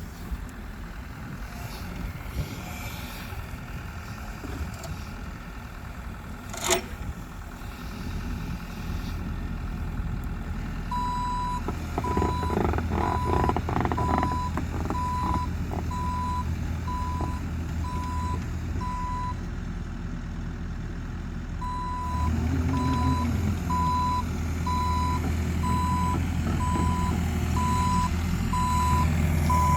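Excavator engine running, with a single sharp knock about a quarter of the way in and some clatter a little later. Its travel alarm then beeps steadily at about one beep a second, in two runs with a short break between, and the engine runs louder during the second run.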